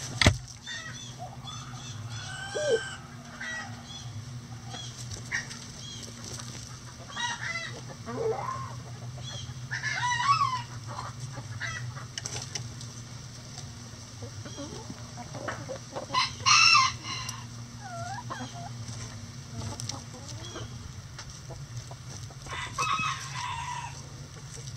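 A flock of backyard chickens clucking and calling at intervals, with a few louder squawking calls, the loudest about two-thirds of the way through. A steady low hum runs underneath, and there is a sharp knock at the very start.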